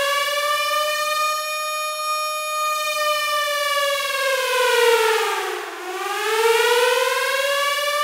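Police siren in a slow wail: the pitch holds high, sinks about five and a half seconds in, then climbs back up and holds.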